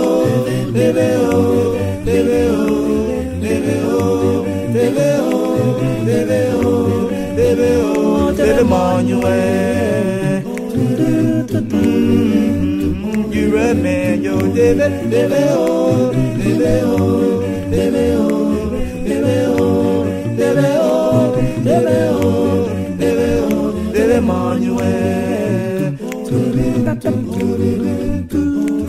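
An a cappella vocal group singing a song, several voices together with no instruments.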